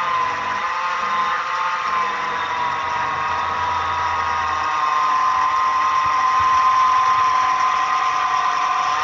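Milling machine spindle running with a steady whine while the bit plunges into an aluminium part, drilling a reference hole.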